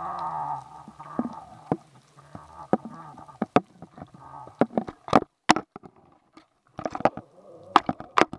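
Sharp, irregular knocks and clicks picked up through an underwater camera housing with bait attached, as fish bump and bite at the bait, bunching into quick runs in the middle and near the end. A low steady hum underlies them and stops about two seconds in.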